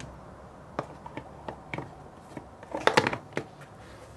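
Hands handling small plastic bear-shaped containers: a few light clicks and taps, then a louder clatter of plastic knocks about three seconds in.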